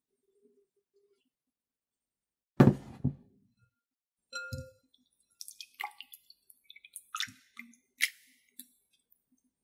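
A glass bowl set down on a wooden tabletop with a heavy thump about two and a half seconds in, a second knock just after, then a brief glassy ring. Then a run of small splashes, drips and clicks as fingers work through salmon roe in water, picking off the membranes.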